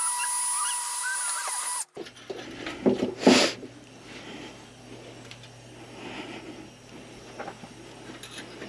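DeWalt cordless drill running at a steady whine as its bit bores into a plastic battery box, stopping abruptly about two seconds in. A couple of sharp knocks follow about a second later, then only soft handling noise.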